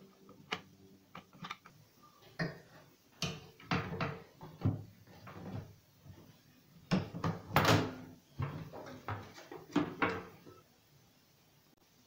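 Plastic knocks and clatter of a microwave oven's control panel being handled and fitted back into the oven's metal cabinet: a run of irregular bumps, the loudest cluster about seven and a half seconds in.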